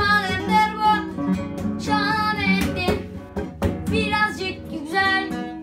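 A boy singing a song in wavering, drawn-out phrases while strumming a classical guitar.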